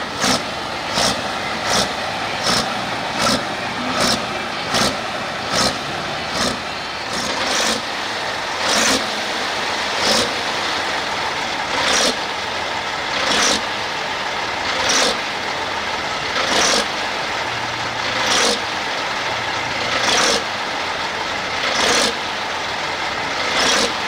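Deutz pulling tractor's diesel engine running at the sled, with short loud bursts that repeat, close together at first and then about every one and a half seconds.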